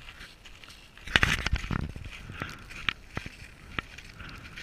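A hiker's footsteps crunching over rough, hardened lava rock, with irregular sharp clicks and knocks, a cluster of them about a second in.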